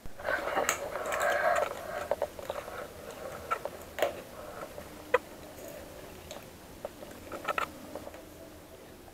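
Clattering and scraping for about two seconds, then scattered light clicks and taps as grilled chicken pieces are handled on a steel plate.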